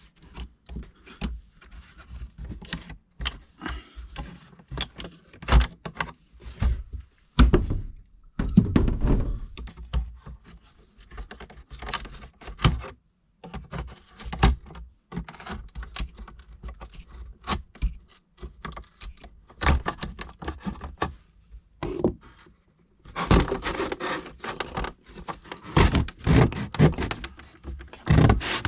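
Irregular knocks, thunks and scraping as a stapled-on wall panel is pried loose and pulled off, with a busier stretch of knocking and scraping near the end.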